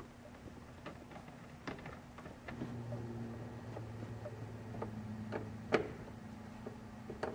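Screwdriver driving small screws into a plastic steering column cover: scattered light clicks and ticks of metal on plastic, the sharpest near the end. A low steady hum sets in about two and a half seconds in.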